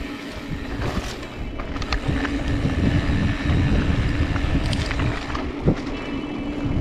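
Mountain bike riding over a dirt trail: wind rushing over the microphone and a steady low rumble from the tyres and frame, with scattered sharp knocks and rattles from rough ground.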